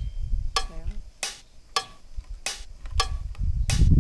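A machine running with a regular sharp clack about every 0.6 seconds over a low rumble, which grows louder near the end.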